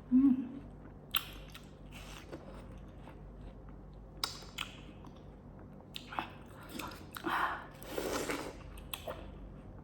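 Close-miked eating: a person biting and chewing food, with scattered wet mouth clicks and a couple of longer, noisier mouth sounds near the end.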